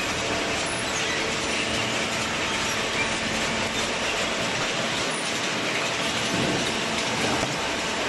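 Cardboard baling line running: the steel chain conveyor feeding the baler clatters and rattles steadily.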